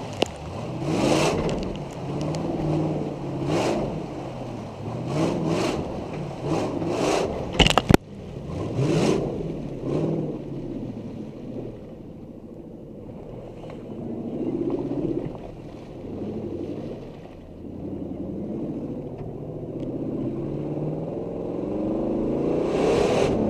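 Supercharged Toyota 2UZ-FE V8 with long-tube headers, revving up and down repeatedly while the truck drives through mud, with a few sharp knocks about eight seconds in. It then settles to lower, steadier running before revving up again near the end.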